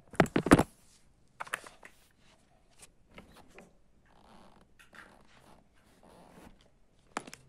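A quick clatter of sharp clicks and knocks in the first half second, then scattered faint clicks and soft rustling.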